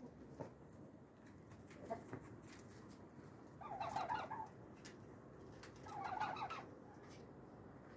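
Chickens clucking in two short bursts, about four and six seconds in, with faint clicks between.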